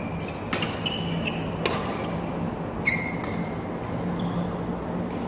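Feather shuttlecock with a real cork base being struck by badminton rackets during a rally, sharp hits about a second apart, with short high squeaks of shoes on the court floor.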